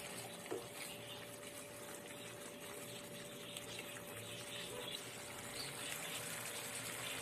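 Apple halwa mixture cooking in a steel pan on a gas stove as it is stirred with a wooden spoon: a steady, faint hissing and bubbling, with a brief knock about half a second in.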